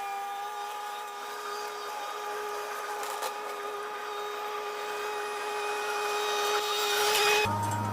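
Chainsaw running at high revs with a steady whine, the cutting noise building and getting louder toward the end before it cuts off suddenly near the end, replaced by a deeper engine drone.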